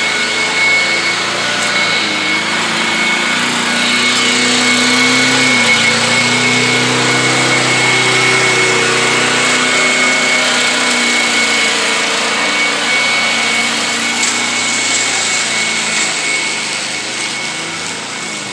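Push lawn mower engine running steadily, with a steady high whine over it.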